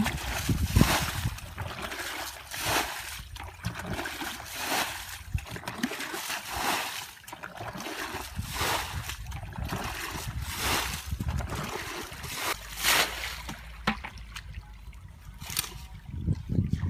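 Muddy water splashing as a plastic bucket scoops it from a shallow flooded ditch and flings it out, with trickling between throws. A splash every one to two seconds, thinning out near the end.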